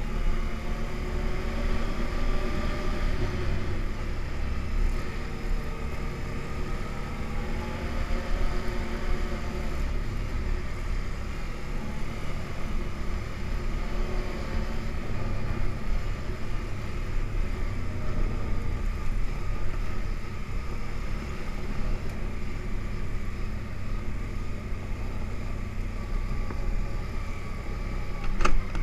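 ATV engine running steadily under way, its pitch rising and falling a little with the throttle, over a low rumble of ride noise. A single sharp knock near the end.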